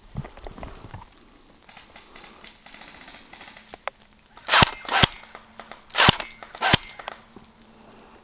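Airsoft gun firing four sharp shots in the second half, in two pairs about a second apart.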